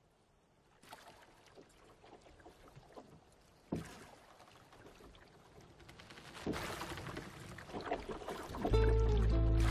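Water lapping against a small wooden rowboat, with scattered knocks from the boat, slowly growing louder. Film score music comes in near the end.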